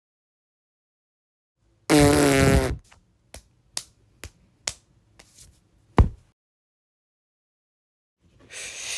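Cartoon fart sound effect, a loud wobbling blast lasting under a second, followed by a few light clicks and a sharp knock. A rising hiss starts near the end.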